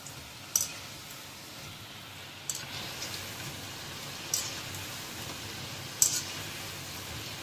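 Gram-flour pakoras deep-frying in hot oil in a kadhai: a steady sizzle, with four sharp clicks from the wire skimmer tapping the pan about every one and a half to two seconds as the pakoras are turned.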